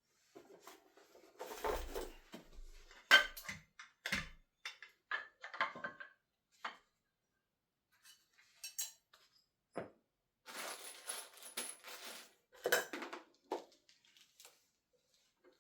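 Small metal lathe parts and accessories being handled during unboxing: a scatter of clinks and clanks with rustling of packaging in two stretches, with short quiet pauses between.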